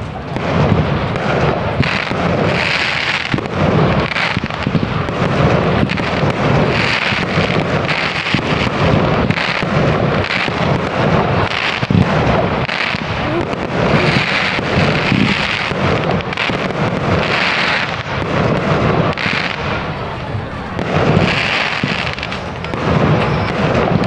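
Fireworks display: a dense, continuous barrage of aerial shell bangs, with bursts of crackle every few seconds.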